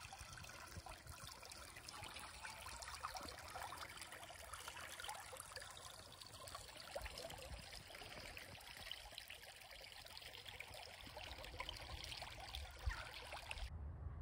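Shallow creek flowing and trickling, a faint steady babble of water. It stops abruptly near the end.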